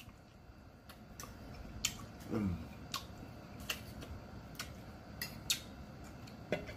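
Eating a salad with a fork from a plate: about ten scattered sharp clicks and smacks from the fork on the plate and the mouth while chewing, with a short falling hum from the eater about two and a half seconds in.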